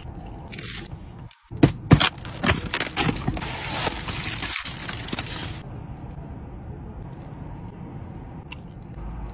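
Aluminium foil crinkled and handled: a dense crackling from about a second and a half in until a little past five seconds. A low steady hum continues underneath.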